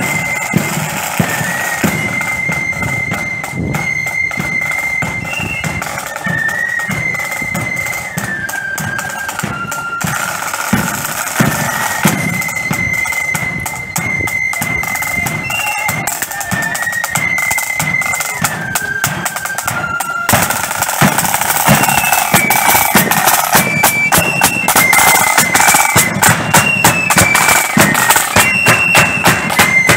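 Marching flute band playing: flutes carry a melody in unison over rattling side drums and bass drum beats, getting louder about two-thirds of the way through.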